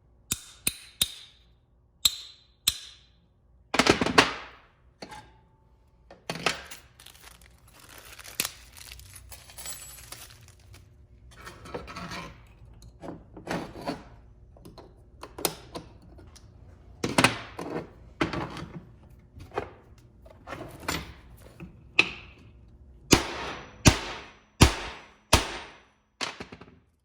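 Hammer tapping on metal: irregular blows, some with a short metallic ring, setting the U-joint caps into the CV joint's yokes. They only need light taps to seat. A stretch of scraping and handling of parts comes in the middle.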